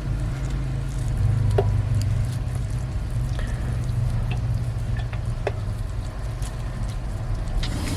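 Food sizzling as it cooks, over a steady low hum, with a few sharp clicks about one and a half seconds in and again about five and a half seconds in.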